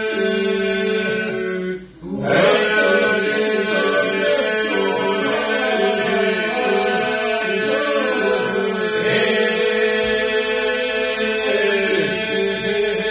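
A group of men singing a Lab polyphonic song unaccompanied. Some voices hold a steady drone while lead voices move in melody above it. The singing breaks briefly, as for a breath, about two seconds in, then carries on.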